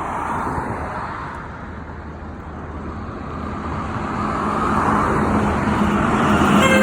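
Semi-trucks approaching and passing, their engine and tyre noise building over the last few seconds with a steady low engine note. Right at the end a truck's city horn starts to sound.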